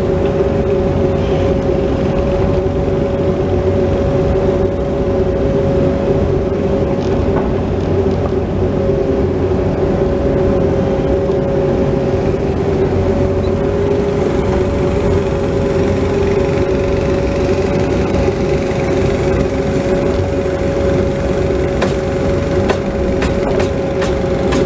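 Bobcat 337 mini excavator's diesel engine running steadily under working load, heard from the operator's seat, with a steady whine over the rumble as the boom and bucket move dirt. A few sharp clicks near the end.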